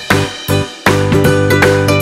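Upbeat, uplifting children's background music with bright pitched notes struck on a bouncy beat.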